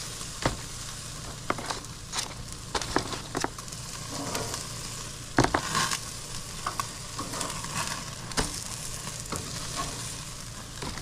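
Pork chops sizzling on a hot gas grill, a steady frying hiss, with sharp clacks of metal tongs against the grill grates and pan a dozen or so times as the chops are lifted off.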